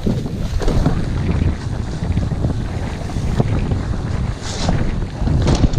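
Wind rumbling on the on-board camera microphone of a mountain bike riding a muddy dirt trail, with frequent short knocks and rattles from the bike and its tyres over the ground.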